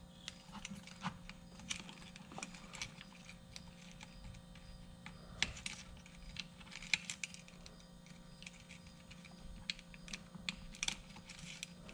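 Scattered small plastic clicks and light rustling as small multi-pin wire connectors are pushed into an electric skateboard's main board and the wires around them are handled, over a faint steady hum.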